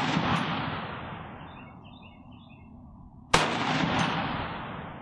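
Shots from a CMMG Anvil semi-automatic rifle in .458 SOCOM. It opens on the fading echo of a shot fired just before, then a single shot about three and a half seconds in. Each report rolls away over a second or two.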